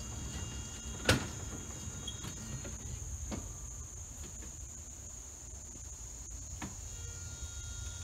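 Insects droning steadily, with a low rumble of a small electric locomotive and gondola car rolling slowly on 2-foot gauge track. A sharp clank about a second in, and two fainter knocks later, from the cars on the rails.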